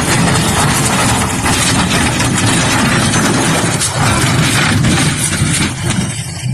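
A large engine running loudly, with a dense rough noise over it and no break.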